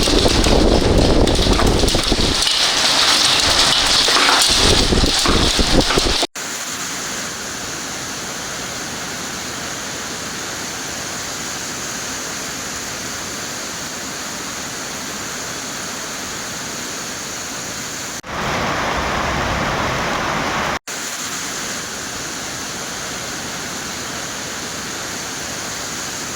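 Heavy rain pouring down, a loud, rushing downpour at first. About six seconds in it cuts off abruptly to a steadier, quieter rain hiss, with another louder stretch of a few seconds later on.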